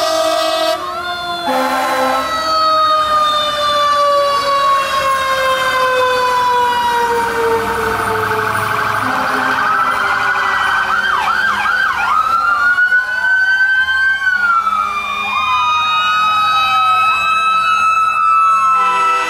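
Several fire apparatus sirens sounding together. One siren winds down in a long, slowly falling wail, typical of a mechanical siren coasting down. From about halfway through, electronic sirens overlap it with rising and falling wails and fast yelps. A truck air horn sounds briefly at the start and again near the end.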